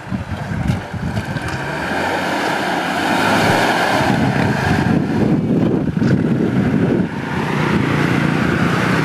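An off-road 4x4 engine running hard as the vehicle drives through a water-filled mud pit, with a heavy rush of splashing water that builds over the first few seconds and holds.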